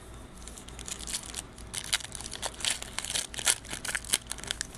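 Foil wrapper of a 2019-20 Panini Revolution basketball card pack being torn open by hand: a quick, irregular run of sharp crinkles and crackles that starts about a second in.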